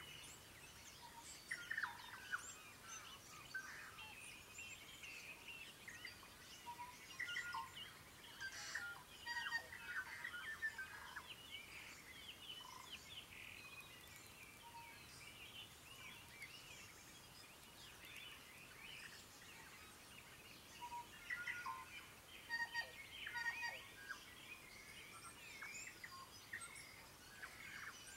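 Morning dawn chorus of many wild birds singing and calling at once: a dense overlapping mix of chirps and short whistled phrases, with busier, louder stretches about two seconds in, around eight to ten seconds, and again around twenty-one to twenty-four seconds.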